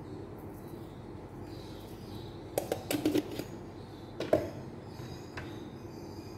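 A few light clicks and taps as a spice shaker is handled over a glass baking dish, the sharpest tap about four seconds in, over a steady low kitchen hum.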